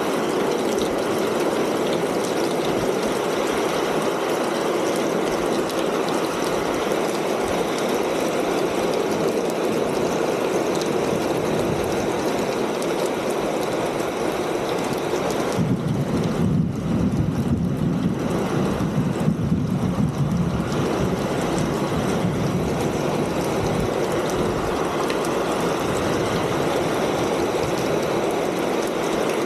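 Steady rain falling on a ribbed tin roof, a dense even hiss of drops on the metal. About halfway through, a lower rumble swells for about five seconds while the higher hiss thins, then the even patter returns.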